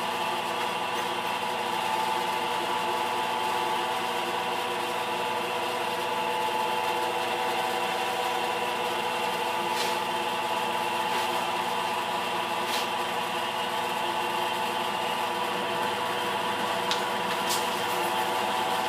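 Force International knee mill running under CNC control, its half-inch end mill cutting metal plate: a steady machine hum made of several held tones over a hiss, with a few sharp ticks around the middle and again near the end.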